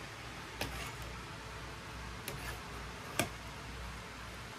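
Three light clicks, as of kitchen utensils tapping a cooking pot, over a low steady hum.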